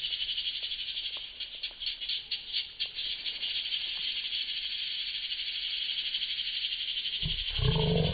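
Steady, high-pitched pulsing chorus of calling frogs. A louder low rumble comes in near the end.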